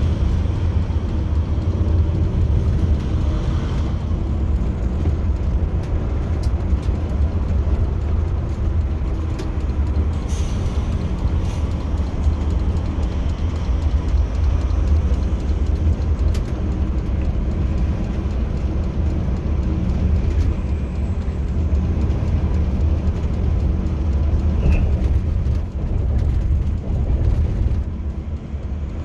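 Steady low drone of a coach bus cruising on a highway, its engine and tyre noise heard from inside the cabin.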